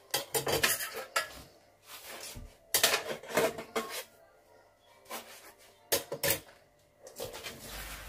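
Washing up a stainless steel pot in a kitchen sink: metal clinks, knocks and scrubbing in several short spells with quiet gaps between.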